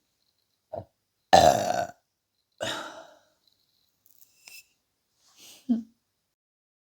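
A person burping: one loud burp about a second in, lasting about half a second, and a shorter, quieter burp soon after, with a few small mouth sounds near the end.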